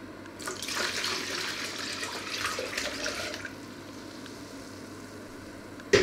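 Water poured from one plastic measuring jug into another, a splashing pour lasting about three seconds. A sharp knock near the end, the loudest sound.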